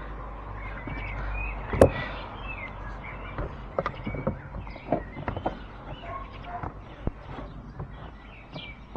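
Light plastic clicks and knocks as a cabin filter is handled and pushed into its plastic housing, with one sharp click about two seconds in. Birds chirp in the background.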